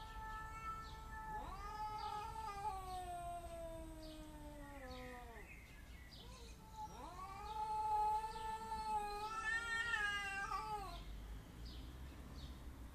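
Cats caterwauling: long, drawn-out yowls. One yowl slides steadily down in pitch over about four seconds, and after a short gap another rises, holds and stops about eleven seconds in.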